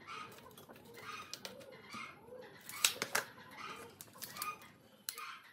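Workbench handling noise as a board is measured and marked: a few sharp clicks about three seconds in, fitting a tape measure being retracted. Throughout, a soft cooing bird call repeats about twice a second.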